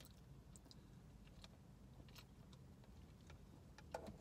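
Near silence: a faint low hum inside a car with a few soft mouth clicks while sipping a soda through a straw, the clearest click near the end.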